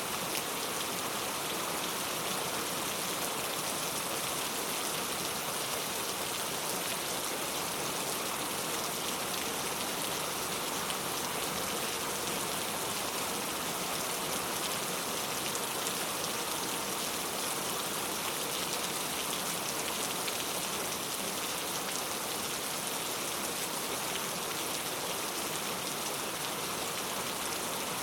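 Heavy rain falling steadily, an even hiss of drops on surfaces with no thunder or other events.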